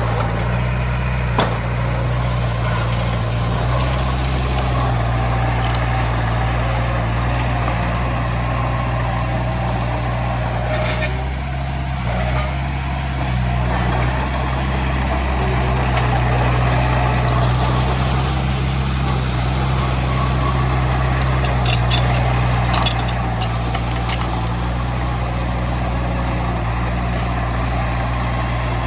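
Diesel engine of heavy earthmoving machinery running steadily under work, with a few short metallic clanks and squeaks on top.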